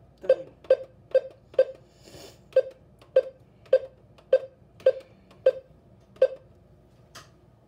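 Key-press beeps from an Alert Works EAR-10 weather alert radio: about eleven short, identical beeps, roughly two a second, as its button is pressed repeatedly to step through the alert-event settings. They stop a little past six seconds in, followed by one faint click.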